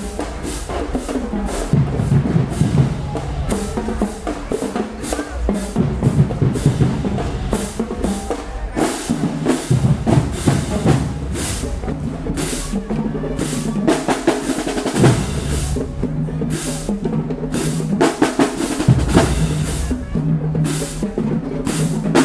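University marching band playing in a parade. Its drumline's snare and bass drums are prominent, beating steadily, with held low notes in stretches.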